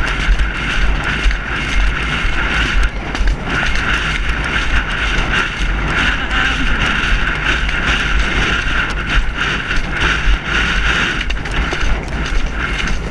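Wind noise on a helmet-mounted GoPro as the horse is ridden along: a constant loud hiss over a low rumble, with irregular small knocks.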